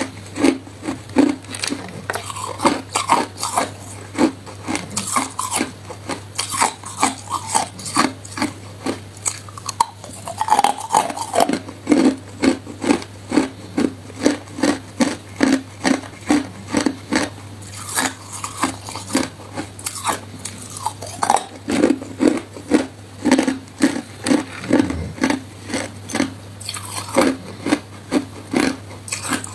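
Crushed ice being chewed in the mouth, a steady, regular run of crisp crunches, mixed with ice pieces clinking as they are picked out of a bowl.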